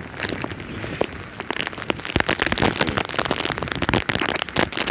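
Hurricane rain: wind-driven drops pelting the camera in a dense, irregular patter of sharp taps over steady wind and rain noise.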